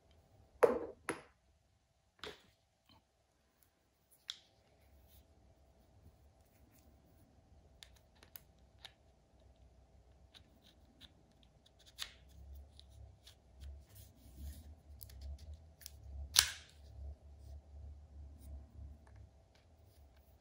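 A few sharp metallic clicks and snaps of Wera quick-release bit holders and bits being handled and clipped into the Tool-Check Plus case, with quieter handling rustle between. The loudest clicks come about a second in and again about three-quarters of the way through.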